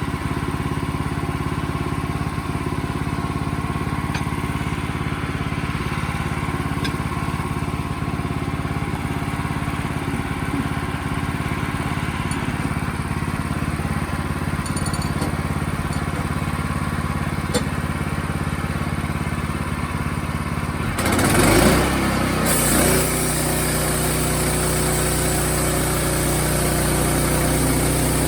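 Wood-Mizer portable sawmill engine running steadily. About three quarters of the way through, the sound surges briefly and changes pitch, and a steady high hiss joins it soon after.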